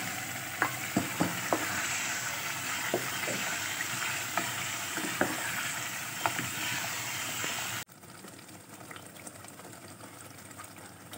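Palak gosht (spinach with meat in oil) sizzling in a pot while a wooden spoon stirs it, with scattered light knocks of the spoon against the pot. The sound drops off abruptly about eight seconds in, leaving a much fainter sizzle with light ticks.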